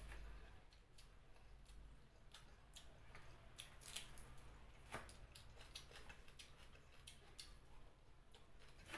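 Faint eating sounds from chicken feet curry with rice: scattered small clicks and wet smacks, a few a second, the sharpest about four and five seconds in.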